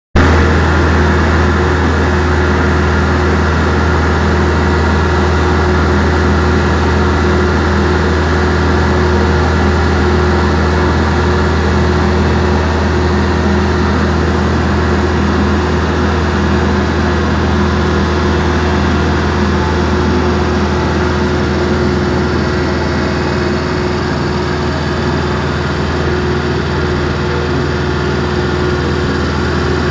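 Small fishing boat's engine running steadily under way, a constant deep hum, over the rush of water along the hull and wake.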